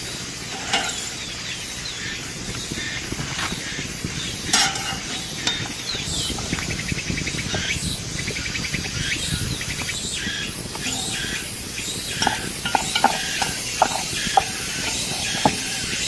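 Food hissing and sizzling in a pan over a fire, with the knocks and clinks of a utensil stirring it, more often near the end. An insect trills rapidly for a couple of seconds around the middle.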